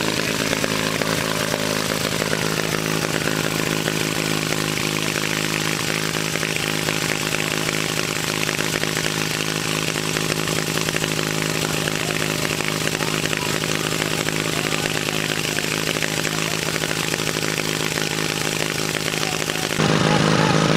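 Engine of a vintage Rosenbauer portable fire pump running steadily at a constant speed. The sound jumps louder near the end.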